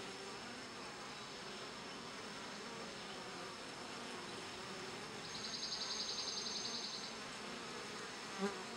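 Honeybees buzzing steadily around a hive entrance. From about five to seven seconds in a high, rapid pulsing trill sounds over the hum, and a short knock comes near the end.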